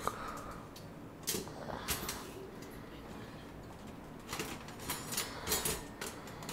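Rummaging in a kitchen drawer for a knife: utensils clattering and knocking, with two sharp clacks in the first couple of seconds and a quick run of clatters later.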